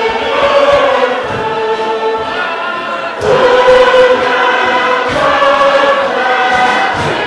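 Tuvaluan fatele: a large group singing in chorus on long held notes over a regular low beat, swelling suddenly louder about three seconds in.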